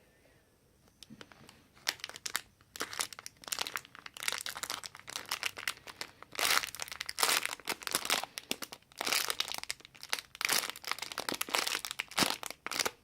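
Plastic wrapping crinkling in bursts of dense crackles as it is handled, starting about two seconds in and stopping abruptly near the end.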